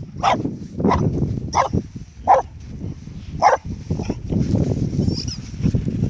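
A dog chewing a squeaky ball, squeaking it five times in quick, uneven succession in the first few seconds, with low scuffling and mouthing noise throughout.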